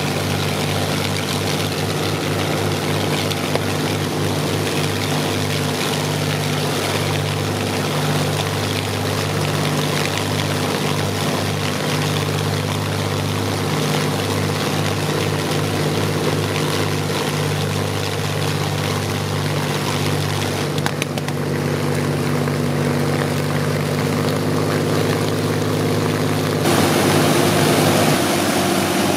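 Rolls-Royce Merlin V12 aero engine running steadily on a ground test stand, a deep, even note with a fluttering pulse underneath. Near the end the sound changes abruptly as two Merlins are heard running together.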